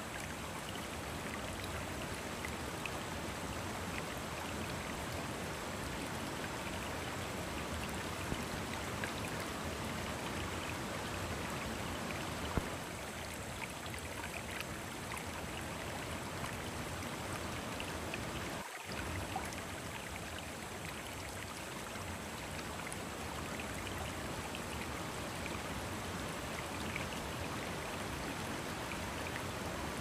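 Mountain river rushing over boulders in a small cascade: a steady, even water noise with scattered small splashes and droplet ticks.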